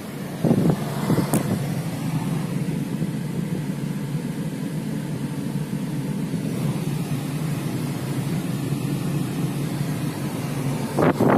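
Car engine and road noise heard inside the cabin, a steady low rumble, with two louder surges about half a second in and near the end.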